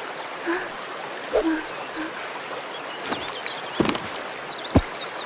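Steady flow of river water, with small bird chirps and a few short knocks in the second half.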